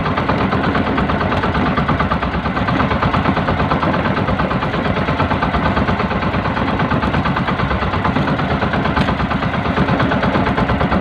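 Outrigger fishing boat's engine running steadily, a fast, even pulsing that does not change.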